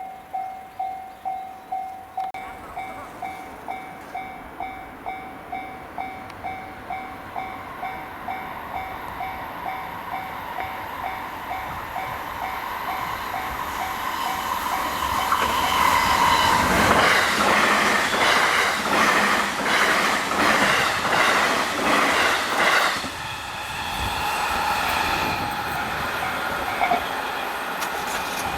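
Japanese level-crossing warning bell ringing about twice a second, turning quieter about two seconds in, as a train approaches and passes the crossing at speed. The train is loudest in the second half, its wheels clattering rapidly over the rail joints, then its sound eases off.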